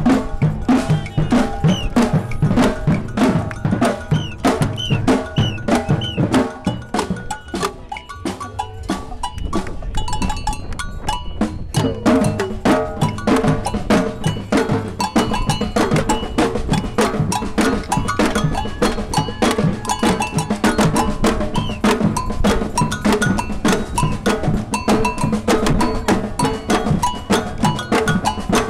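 Samba band percussion: surdo-type bass drums and agogô bells playing a fast, driving groove together. The playing thins out and quietens for a few seconds about a third of the way in, then comes back full.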